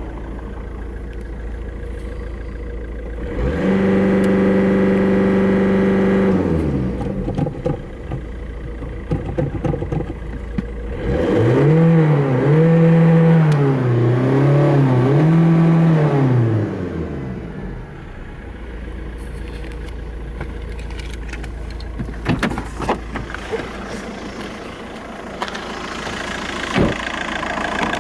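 VW Golf 5 1.9 TDI four-cylinder turbodiesel engine idling. About three seconds in it is revved and held steady for a few seconds, then drops back. A few seconds later it is blipped up and down several times before settling to idle, with a few sharp clicks near the end.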